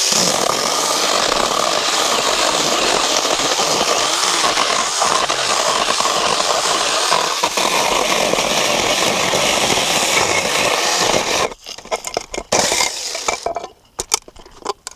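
Battery-powered saw cutting firewood, running steadily for about eleven seconds and then stopping, followed by a couple of short loud bursts and a few clicks near the end.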